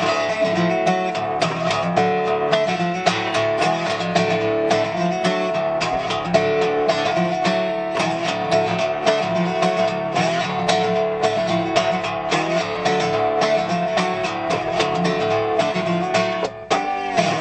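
Gretsch resonator guitar played alone with steady, rhythmic strumming, an instrumental break without vocals.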